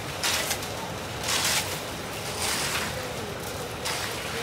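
Wet concrete being pushed and dragged with a concrete rake, a gritty scraping in repeated strokes about a second apart, over the steady low rumble of a concrete mixer truck.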